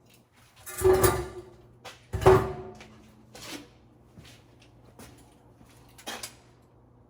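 Two loud metallic clanks about a second and a half apart, each with a short ring, followed by a few lighter knocks, over a steady low hum.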